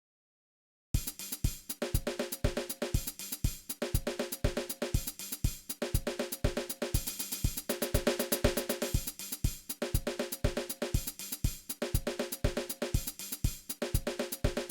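Drum kit playing a steady groove on hi-hat, snare and bass drum with a Paiste 16-inch medium-weight crash cymbal ringing over it. The groove starts about a second in, after silence.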